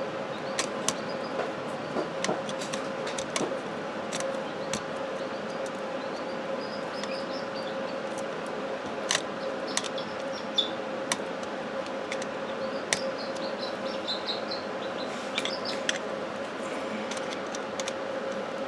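Scattered small clicks and taps of hands fitting wires and a screwdriver to the terminals of a 110 V wall outlet, over a steady background hum.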